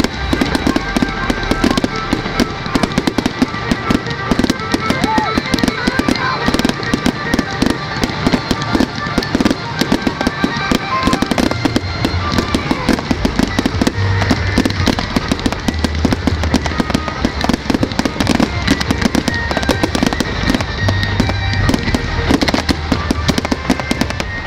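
Fireworks display going off without a break: dense crackling and popping of bursting shells and fountains, many reports a second, with music playing underneath.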